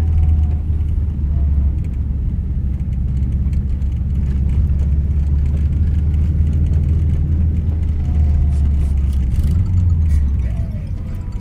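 Car engine and drivetrain running steadily while driving on a snowy track, heard from inside the cabin as a low drone, dipping slightly near the end.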